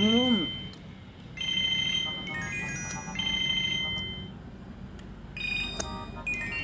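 Mobile phone ringtone: a short electronic melody that repeats about every second and a half and changes pattern near the end. A brief rising-then-falling voiced sound from a person comes at the very start.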